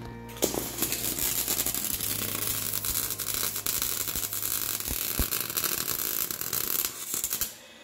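Electric arc welding on steel: a steady, crackling sizzle that starts about half a second in and cuts off suddenly near the end.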